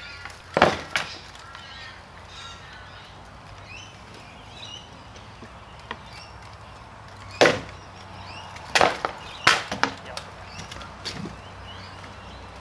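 Rattan swords striking shields and armour in sword-and-shield sparring: sharp wooden cracks, two just under a second in, then a cluster of four between about seven and ten seconds in. Birds chirp faintly in the background.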